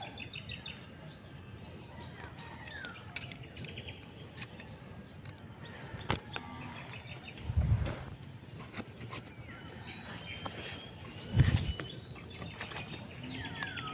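Insects trilling in a steady, fast, even pulse, with short bird calls now and then. Two dull thumps break in, about eight and eleven and a half seconds in, the second the loudest sound.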